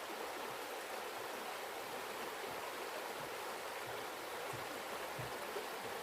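Mountain stream rushing and burbling over rocks below a footbridge, a steady even wash of water.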